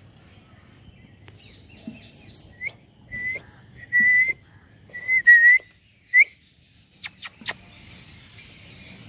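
Young Rottweiler puppy whimpering: about six short, high, clear whines in quick succession, some ending in a little upturn, followed by a few sharp clicks.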